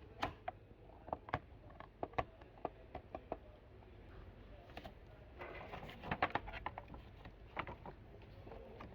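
Light clicks and taps of small plastic toy pieces being handled and set down, with a short spell of rustling packaging a little past halfway.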